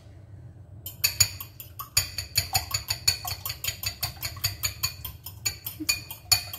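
A spoon beating raw eggs in a bowl, clicking against the bowl in a fast, even rhythm of about six strokes a second. It starts about a second in.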